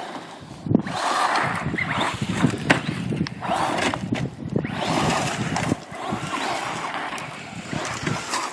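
Remote-control toy car running on a track, its motor and wheels swelling and easing in rough surges as the throttle is worked, with scattered clicks and knocks.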